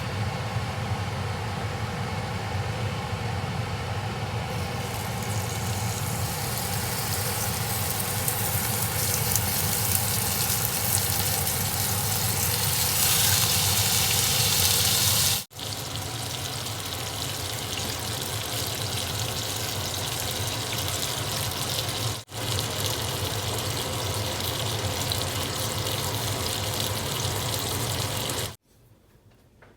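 Food sizzling in hot oil in a pan, a steady loud hiss. It breaks off abruptly twice and stops near the end.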